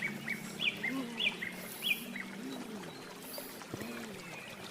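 Bird chirping: a run of short, high chirps, about two a second, that stops about two seconds in.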